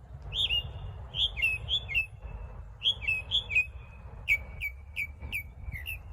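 A small songbird singing close by: a quick run of chirps and short down-slurred whistled notes, some joined by a thin held note, repeating in phrases with brief pauses. A steady low rumble runs underneath.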